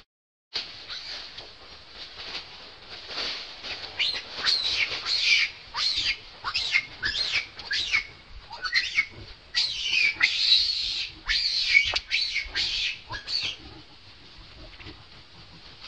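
Long-tailed macaque giving a rapid series of shrill, screeching cries, many sweeping down in pitch, from about four seconds in until near the end.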